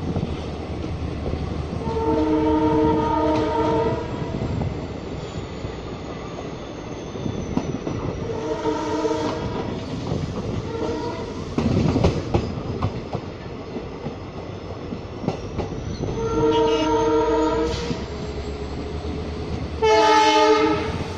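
An EMD WDP-4D diesel locomotive's multi-tone air horn sounds five times, mostly long blasts of a second or two. The last blast is short and the loudest. Under it the train runs on, with a steady rumble and the wheels clattering over the rail joints.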